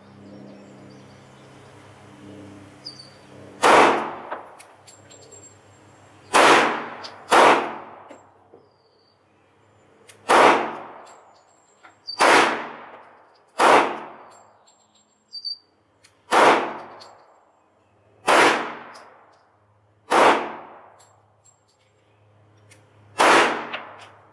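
Ten single 9mm pistol shots from a Sarsılmaz B6, fired one at a time in slow, aimed fire one to three seconds apart. Each shot is a sharp crack with a short echoing tail.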